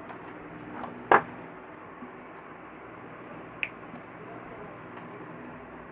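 Two sharp clicks over a steady hiss: a loud one about a second in and a fainter one about three and a half seconds in.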